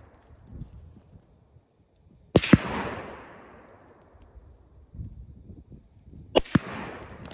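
Two rifle shots from a PSL-54C semi-automatic rifle in 7.62×54R, about four seconds apart, each a sharp crack followed by a long rolling echo that fades over a second or two.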